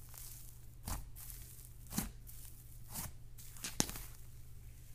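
Thick buttercream slime being pressed, spread and stretched by hand, a soft tearing sound, with four sharp clicks about a second apart, the last the loudest.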